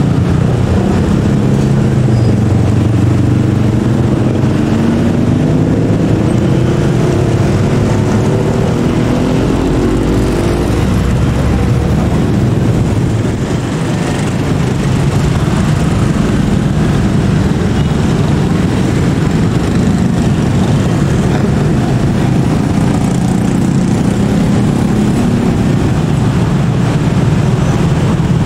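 Motorcycle and road-traffic engines running together in a steady, loud mix. From about four seconds in, one deeper engine note climbs steadily in pitch for several seconds before fading back into the traffic.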